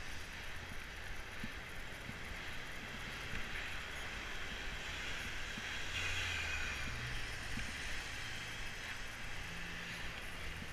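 Wind and road noise on a helmet-mounted camera while cycling along a street in traffic, with a motor vehicle passing close about six seconds in, its engine hum lingering after.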